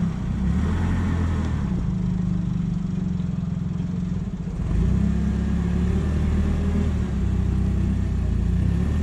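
Large engine of heavy equipment running steadily, getting louder about five seconds in as it takes more load or revs up.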